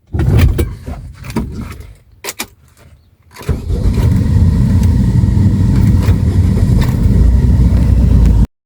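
Potohar jeep's engine being started: a sudden start with a few uneven bursts, then it catches and runs steadily with a loud low rumble from about three and a half seconds in. The sound cuts off abruptly near the end.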